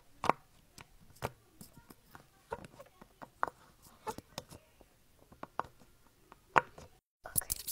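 Silicone pop-it fidget toy's bubbles being pressed in by fingertips, one after another: a string of irregular soft pops, the loudest near the start and just before the end.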